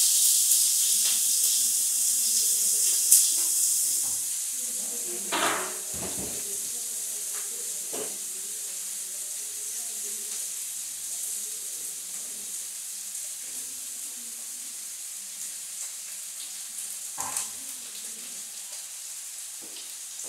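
Onion sizzling as it fries in a pan. The sizzle is loudest at first, drops after about four seconds and carries on quieter, with a few sharp knocks along the way.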